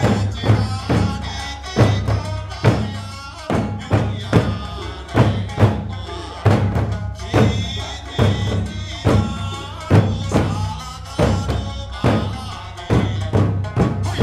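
Okinawan eisa drumming: large barrel drums (ōdaiko) and small hand drums (paranku) struck together in a fast, regular beat, in repeating groups of strokes about two to three a second. Under the drums runs an Okinawan folk melody on sanshin.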